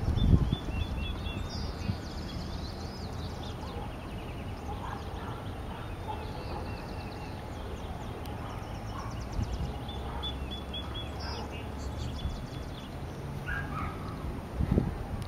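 Small birds chirping and singing, with quick trills and rapidly repeated high notes, over a steady low background rumble. There is a low thump right at the start.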